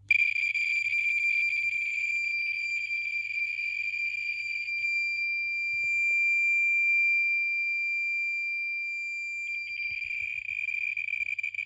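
Handheld radiation detector sounding a continuous high-pitched alarm tone, held steady with faint crackle around it for about eleven seconds, then cutting off just before the end. The uraninite specimen's radiation has set off the detector's alarm.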